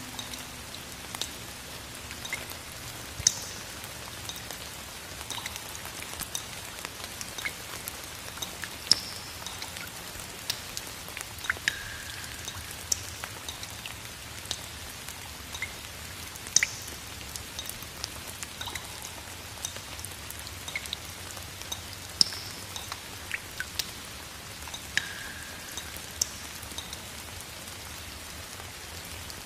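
Steady light rain with scattered separate drops striking, some landing in water with a short pitched plink.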